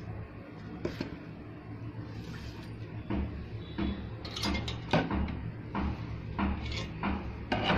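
Irregular light knocks and clatter of a metal spoon against a plastic sieve as gram flour is spooned in and sifted, over a low steady background hum.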